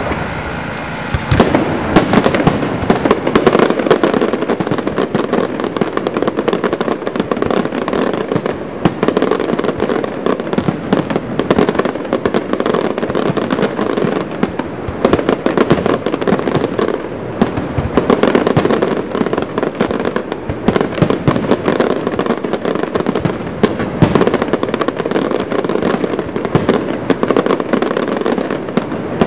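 Fireworks display in a dense barrage: rapid, overlapping bangs and crackling bursts that thicken about a second and a half in and keep going without a pause.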